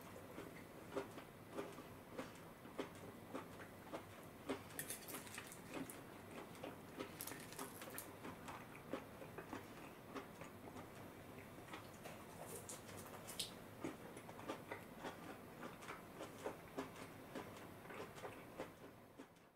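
Close-up eating sounds of chashu pork and salad leaves being chewed: irregular soft clicks and crunches, about two a second, with a few crisper crunches.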